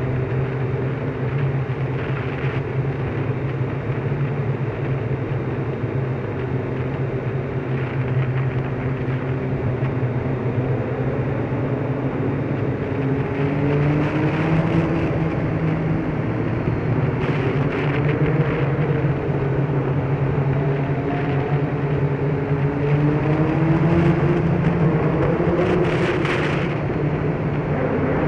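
Motorcycle engine running steadily while riding, with road and wind noise. In the second half its pitch rises and falls a few times as the revs change, and there are a few brief hissing rushes.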